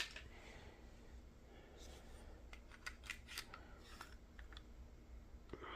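Faint, scattered clicks and light scraping of small hilt parts being handled as a cover is worked out of a lightsaber hilt, with one sharper click at the start.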